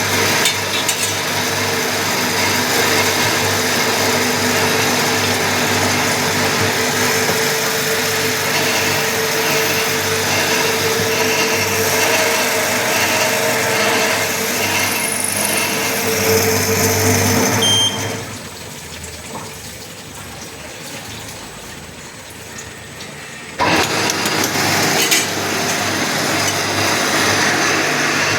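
Automatic drilling and tapping machine running with a steady mechanical hum. It drops away sharply about two-thirds of the way through, then starts up again abruptly about five seconds later.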